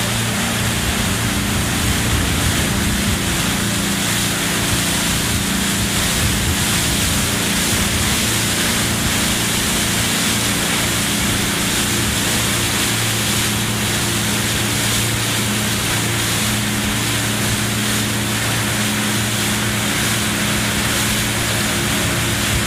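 Motorboat engine running steadily at speed over a constant rush of water.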